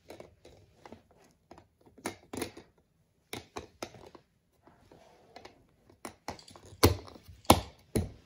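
Snap Circuits plastic parts being handled and pressed onto the base grid: an irregular run of small clicks and taps, with three louder knocks about half a second apart near the end.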